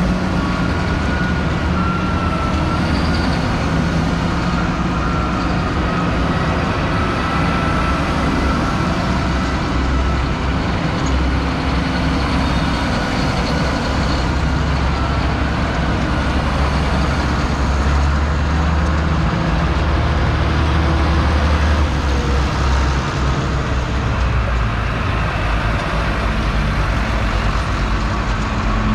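A line of big diesel farm tractors, JCB Fastracs among them, driving slowly past one after another with their engines running steadily. A thin steady whine sits over the engine rumble, and there is hiss from the tyres on the wet road.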